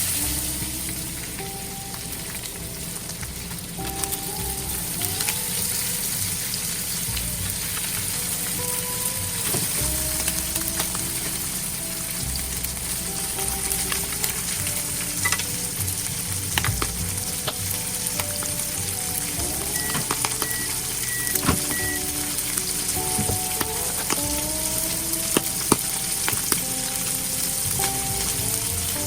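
Food sizzling steadily in a frying pan, with a few light clicks of a utensil against the pan.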